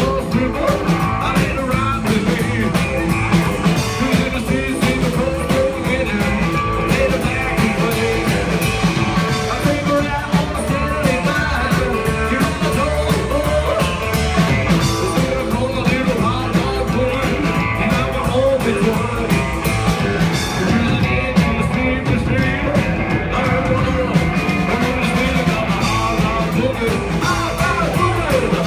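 A rockabilly band playing an original song live, loud and steady: drums, a Gretsch hollow-body electric guitar and an upright double bass, with a lead vocal.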